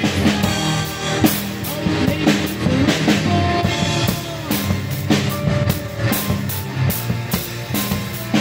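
Music with a drum kit keeping a steady beat over a low bass line.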